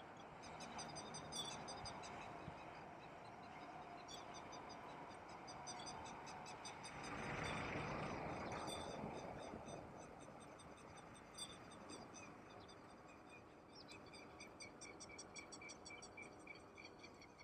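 Frogs calling in a chorus from flooded rice paddies: trains of rapid, rattling pulses repeating throughout, thickening toward the end. A broad rush of noise swells for about two seconds, some seven seconds in.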